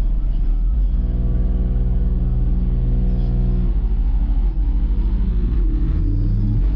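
Car audio subwoofers playing very deep, loud bass notes that hold and then shift in pitch, with a short rising note about six seconds in.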